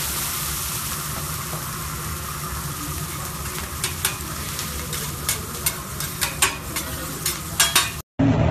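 Food sizzling on a hot teppanyaki steel griddle. From about four seconds in, metal utensils click sharply against the plate, the taps coming faster before the sound cuts off abruptly.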